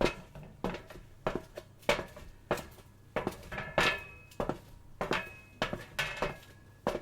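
Footsteps on a metal surface at a steady walking pace, about three steps every two seconds, each a sharp clank, some with a brief metallic ring.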